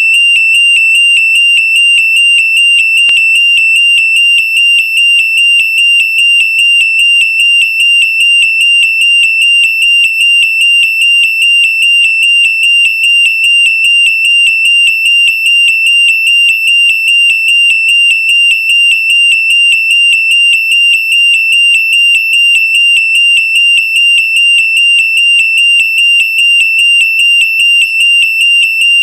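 Burglar alarm sounding: one loud, high-pitched tone that pulses rapidly and continuously without a break.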